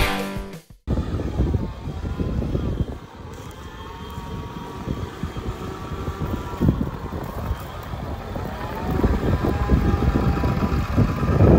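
Ford 7.3 Powerstroke turbodiesel V8 of a 2003 F250 Super Duty running, a low rumble with a whine above it that rises and falls in pitch. It starts about a second in.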